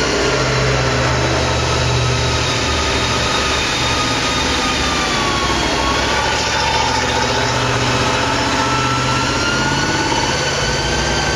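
Tank driving along a woodland track, its engine running steadily with a high whine over it that dips in pitch about halfway through and then rises again.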